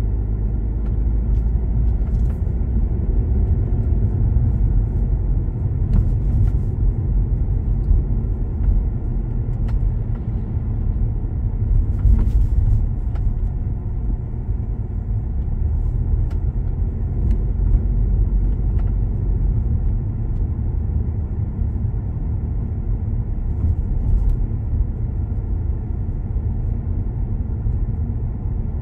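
Car driving slowly on residential streets, heard from inside the cabin: a steady low rumble of road and engine noise, with a few faint light knocks scattered through it.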